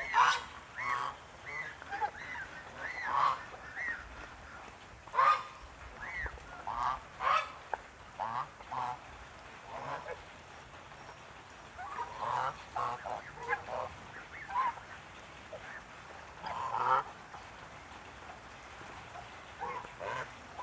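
Lion Head geese honking: many short calls, some overlapping, coming in scattered clusters.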